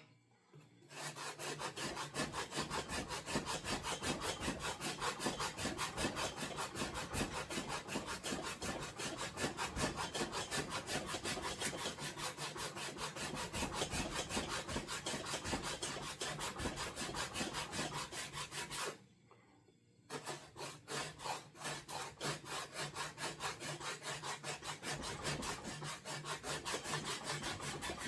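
Hardwood axe handle being shaped with a hand rasp: quick, steady back-and-forth scraping strokes cutting the flat facets of an octagonal grip, with a short pause about two-thirds of the way through before the strokes start again.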